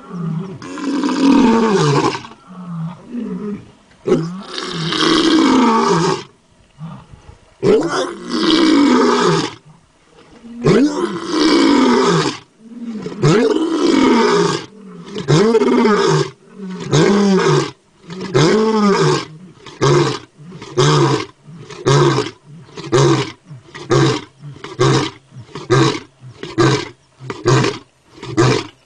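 A lion roaring in its full bout: a few long, loud roars, then a run of shorter grunting roars that come faster and faster, about one a second by the end.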